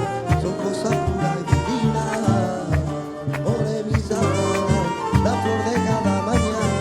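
Latin-style band music with brass and a steady percussion beat, playing an instrumental passage without vocals.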